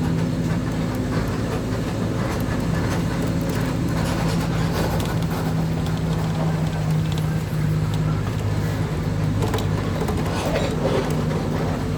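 A vehicle running steadily: a constant low engine hum over rolling road noise.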